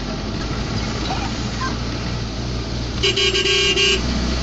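Steady engine and road noise from a car driving on a wet street, heard from inside the cabin. About three seconds in, a car horn sounds in a quick run of short toots lasting about a second.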